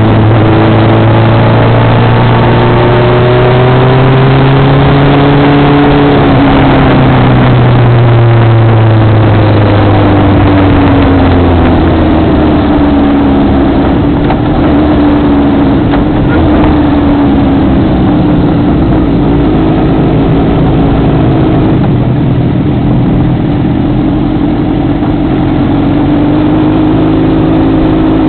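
Motorcycle engine heard from an on-bike camera, with wind noise over the microphone. The engine holds a fairly steady pitch, winds down over several seconds as the bike slows, and then runs at low, steady revs as it rolls slowly.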